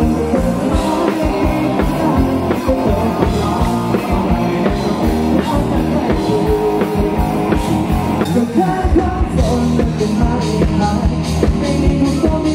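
Live rock band playing with a singer: electric guitars, bass guitar and a drum kit beating steadily under the vocal.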